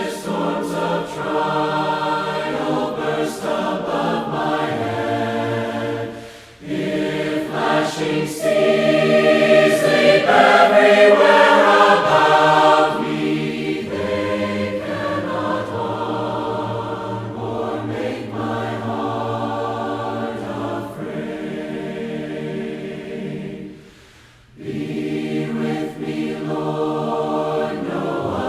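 A group of voices singing a hymn a cappella in harmony, with two short pauses between phrases and the loudest part in the middle.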